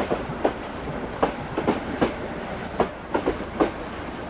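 Train wheels clicking over rail joints, heard from aboard the moving train: a steady rumble with irregular clicks, some in quick pairs.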